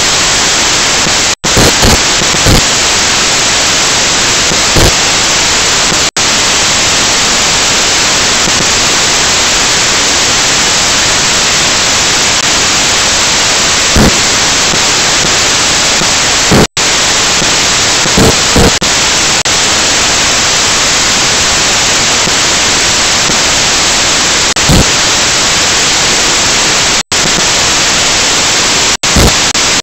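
Loud, steady static hiss with no pitch, broken five times by sudden brief dropouts to silence and dotted with short soft pops.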